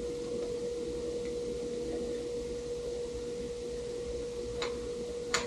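A steady, single-pitch hum runs throughout. Two short clicks of hand tools and hardware on the motorcycle's bolts come near the end.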